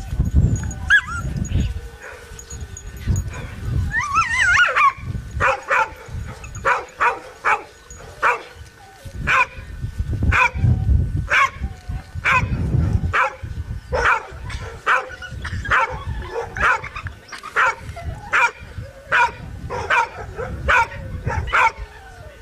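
A dog barking over and over in a steady rhythm of about two barks a second, after a high yelp about four seconds in. A low rumble comes and goes underneath.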